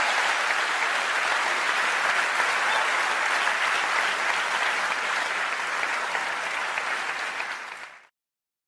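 Applause: a steady crowd of clapping that fades out near the end.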